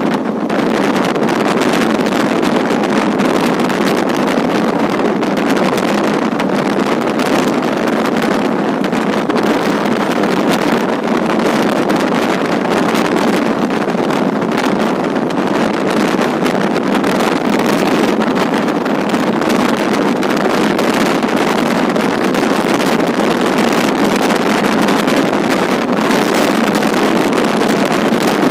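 Steady rushing noise of a fast-moving train heard from on board, with wind blowing across the microphone.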